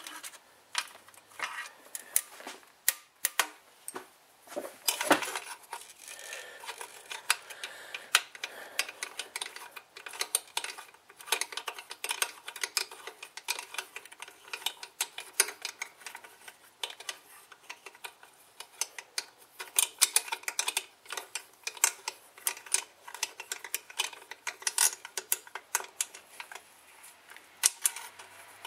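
An Allen key clicking and scraping metal on metal as it is worked in short strokes in a cap screw on a car engine's intake manifold: a long, irregular run of small sharp clicks, sparse at first and then coming thick and fast.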